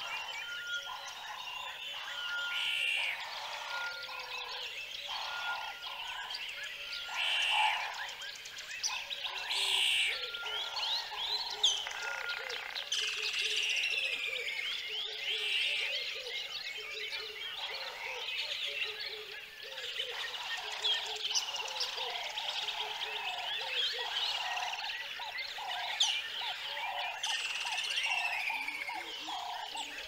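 Frogs croaking in a steady, repeated chorus, with many birds chirping and singing over them throughout.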